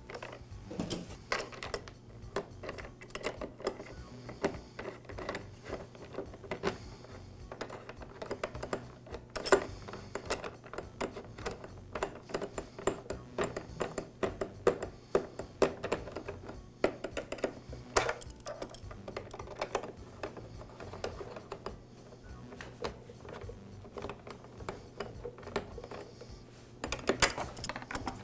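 A ratchet wrench clicking in quick irregular runs as the screw of the fuel tank's plastic retaining strap is tightened, over a faint steady low hum.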